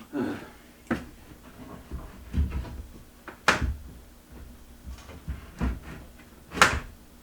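Irregular knocks and bangs of a kitchen countertop and sink being jostled and worked loose, with the loudest bangs about halfway through and near the end.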